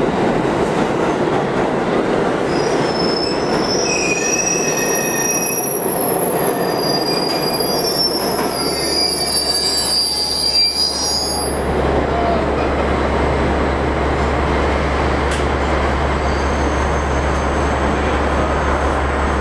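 NYC subway trains running through an underground station with a steady rumble. Steel wheels squeal high-pitched on the rails for several seconds, stopping about halfway through. A steady low hum comes in partway through and holds.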